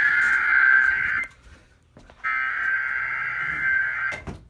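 Emergency Alert System SAME header data bursts: harsh buzzing digital tones, one ending about a second in and a second running about two seconds after a one-second gap. It is the coded header that opens an emergency alert, here a severe thunderstorm watch.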